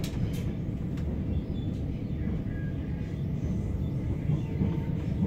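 A c2c electric commuter train running at speed, heard from inside the carriage: a steady low rumble of wheels on the rails, with a couple of faint clicks at the start.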